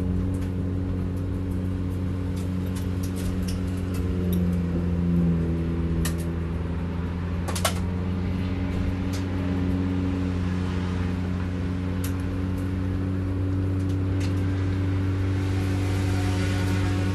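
B-Spec race car's engine running at low, steady revs while the car rolls slowly, heard from inside the cabin, with scattered light clicks and rattles and one sharp click about seven and a half seconds in.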